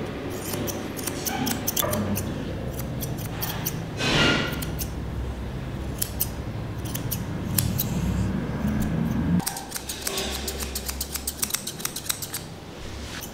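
Curved grooming scissors snipping fur on a cat's face: a run of short, sharp snips that comes quickest in a dense burst near the end. A brief, louder rushing sound stands out about four seconds in.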